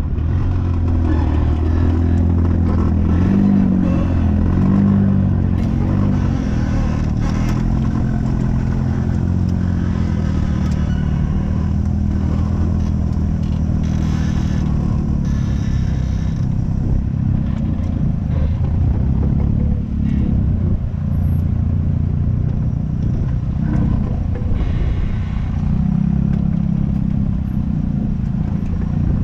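Off-road vehicle engine running under load, revving up and down a few times near the start, then running more roughly with some clatter.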